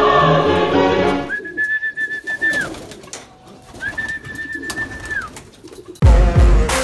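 Three long, steady whistled notes, each dropping off at the end: a pigeon fancier whistling to call a racing pigeon home into the loft. Loud music starts about six seconds in.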